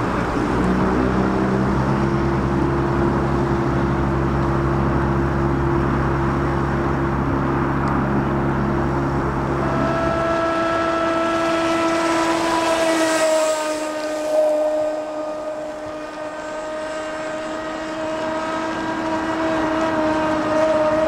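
A deep engine drone runs for the first ten seconds and stops. Then comes the high, steady whine of a radio-controlled racing boat's small two-stroke nitro engine running flat out, its pitch dipping slightly now and then.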